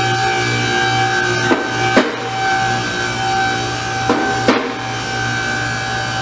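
Music track with a drum kit and guitar: steady held notes, with sharp drum hits about a second and a half in, around two seconds, and twice more past four seconds.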